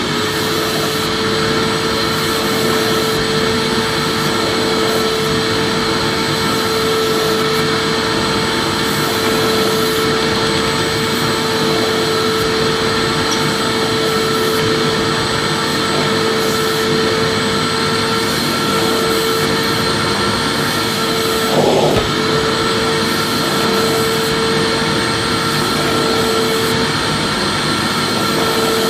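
Vacuum cleaner running at full speed: a steady motor whine over an even rush of air. About three-quarters of the way through, the whine wavers briefly and the sound gets a little louder for a moment.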